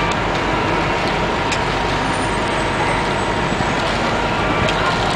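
City transit bus driving past, its engine running steadily under an even wash of street traffic noise.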